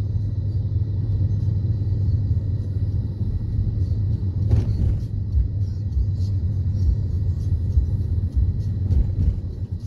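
Car cabin rumble: low, steady engine and road noise inside a car driving slowly down a residential street, with one brief click about halfway through.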